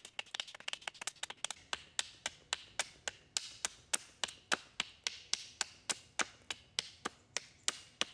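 Quick, even series of sharp wooden taps, about three or four a second, as a Silver Fox bushcraft knife is worked in short downward strokes along a stick held upright on a chopping block, roughing out a spoon blank.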